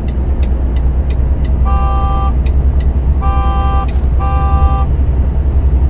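A vehicle horn sounding three short blasts, each about half a second long, over a steady low engine rumble.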